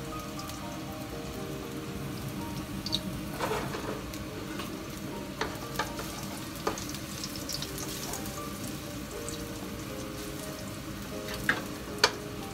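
Chopped garlic sizzling gently in olive oil in a nonstick frying pan as it browns, stirred with a wooden spatula that knocks against the pan a handful of times.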